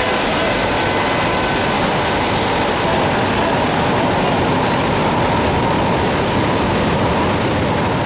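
Heavy downpour pouring as a steady hiss, with the low running of traffic underneath.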